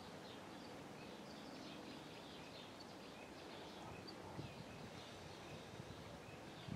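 Faint chorus of small birds singing, many short high chirps overlapping, over a steady low background noise.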